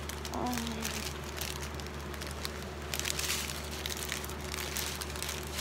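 Clear plastic bags of diamond-painting drills crinkling and rustling as they are handled, in irregular bursts that grow busier about halfway through.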